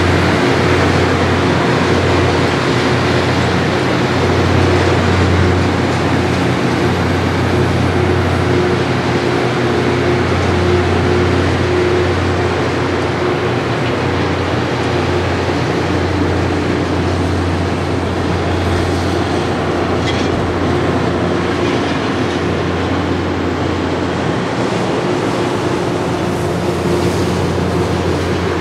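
Loram rail grinder train passing at close range: diesel engines running with a steady low hum under the continuous rolling noise of its grinding cars and tank cars.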